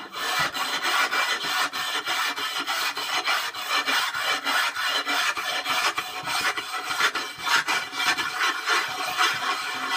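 A kiln shelf being scrubbed by hand with a red-handled abrasive tool: a continuous rasping scrape in quick, irregular back-and-forth strokes, grinding the fired-on crust off the shelf's surface.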